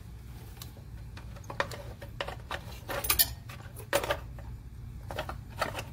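Sharp metallic clinks and knocks from a brass refrigeration manifold gauge set and its hose fittings being handled, about nine separate clinks spread over the seconds. A steady low hum runs underneath.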